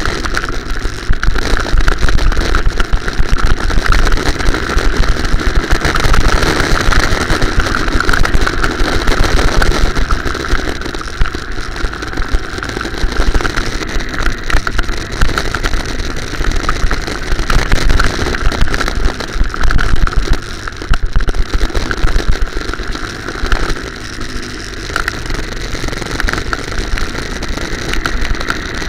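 Go-kart engine running continuously while the kart is driven around a track, recorded by a camera mounted on the kart, with a dense low rumble and rapidly fluctuating loudness.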